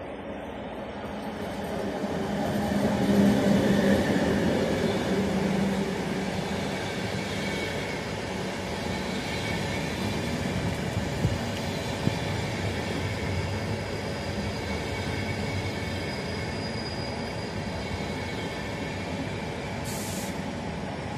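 Electric passenger train passing close along a station platform: the locomotive goes by first with a steady electric hum, loudest a few seconds in, then the coaches roll past with an even rumble. A couple of sharp wheel knocks come about halfway through, and a thin wheel squeal is heard later on.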